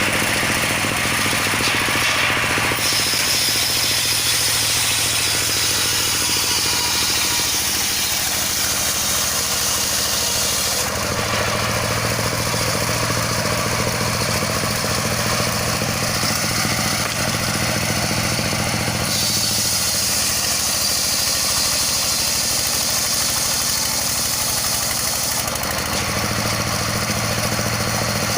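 Engine-driven circular sawmill running steadily, with a high whine that comes and goes several times as the saw's load changes.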